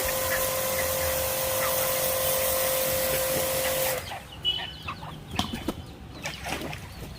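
Pressure washer running, a steady hum under an even hiss of spraying water, cutting off abruptly about four seconds in. Chickens cluck softly after it stops.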